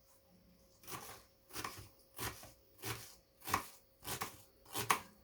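Knife slicing an onion thinly, a steady run of about eight cutting strokes, roughly one every two-thirds of a second.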